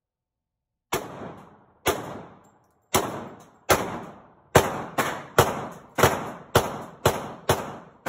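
About a dozen single gunshots with an echoing tail after each. They come about a second apart at first and quicken to about two a second from halfway through.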